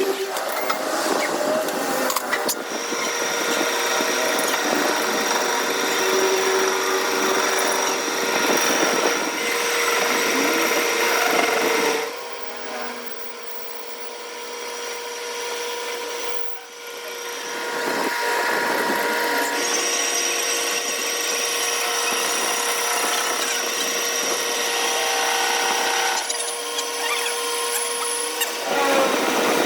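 A motor-driven workshop tool running steadily with a constant whine over a rough mechanical noise. It drops away about twelve seconds in and runs up again about six seconds later.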